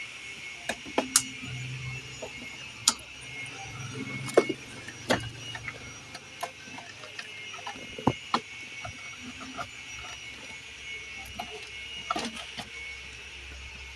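Irregular sharp clicks and knocks, a dozen or so at uneven intervals, as dashboard trim panels and wiring are pried and handled while an old car alarm's wiring is being pulled out.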